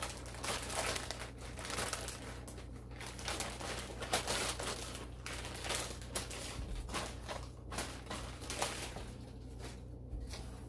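Packaging crinkling and rustling in quick, irregular crackles as a kitchen gadget is unwrapped.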